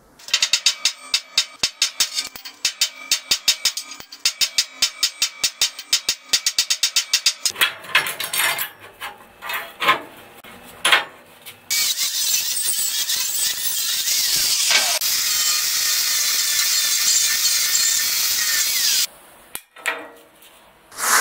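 A fast, even run of sharp metallic clicks, then a few irregular knocks and clanks of steel being clamped on a steel welding table, then an angle grinder grinding the edge of square steel tubing steadily for about seven seconds before cutting off.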